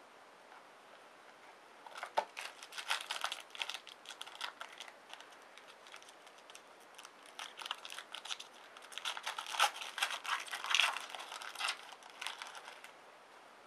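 Trading-card pack and cards being handled: crinkling and crackling of the wrapper and cards in two spells of quick irregular bursts.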